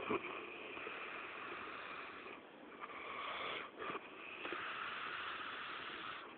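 A drunk man snoring in his sleep: a loud snore right at the start and another a little under four seconds in, with rasping breath between.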